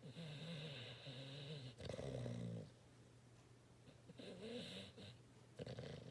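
Snoring in slow breaths: a long wavering pitched snore, a louder one about two seconds in, then two shorter ones near the end.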